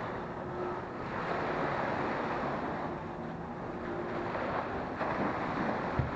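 Small waves washing up on a sandy beach, surging several times, with wind buffeting the action camera's microphone. A short low bump near the end.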